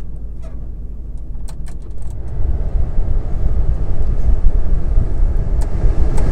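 Vehicle idling with a steady low rumble and a few light clicks, then about two seconds in the heater/AC blower comes on and the rush of air from the dash vents swells up loud and stays there: the stronger airflow through a freshly replaced cabin air filter.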